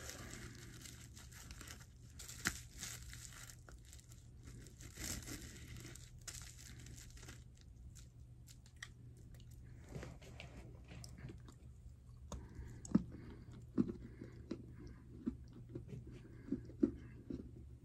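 Dry bricks of edible clay being handled with a faint crinkle of packaging, then bitten and chewed, with several sharp crunches in the second half.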